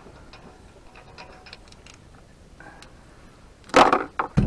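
Faint scattered ticks and clicks of hand tools on a trailer's wheel nuts, then two loud knocks near the end, about half a second apart.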